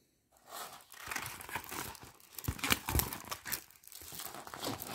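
Clear plastic covering of a diamond painting canvas crinkling as the canvas is handled and unfolded: a run of irregular crackles starting a fraction of a second in.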